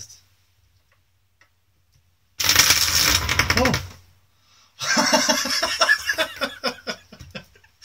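Small Turnigy Multistar 1704 brushless outrunner motors, unmounted on a tabletop, spinning up on their ESCs in two loud bursts starting about two and a half and five seconds in. They whir with a rising pitch and clatter against the table as they jump about. This is the first powered test of the freshly wired flight controller, ESCs and motors, and they respond.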